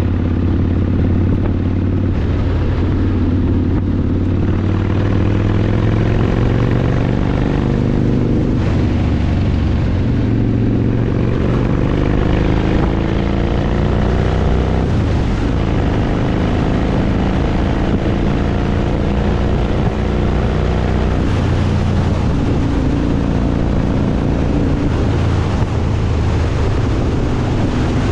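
Motorcycle engine running at riding speed, its pitch rising and falling with the throttle; it climbs for a few seconds and then drops sharply about halfway through.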